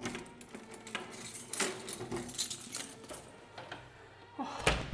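Keys jangling and scraping in a front-door lock as it is unlocked, with scattered metallic clicks, then a heavy thump near the end.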